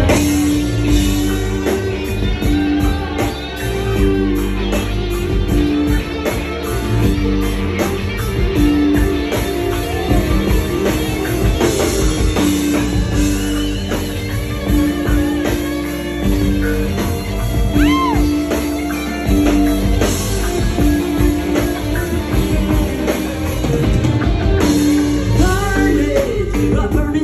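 Live band playing with electric guitars and drums, loud and continuous with a steady beat.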